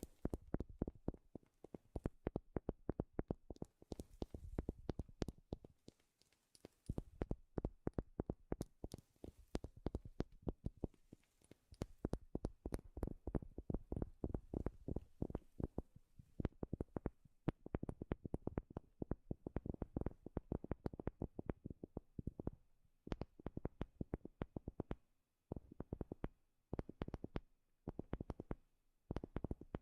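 Rapid tapping on wood, in quick runs of sharp taps with a couple of short pauses.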